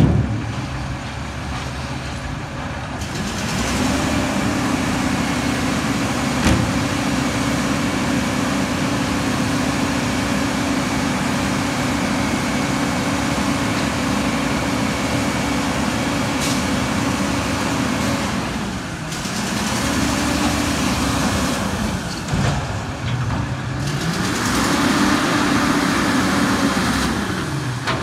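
Autocar Xpeditor front-loader garbage truck's engine revved up and held high to drive the hydraulics, easing off twice and revving again as the arms lift the container over the cab. A sharp knock sounds right at the start.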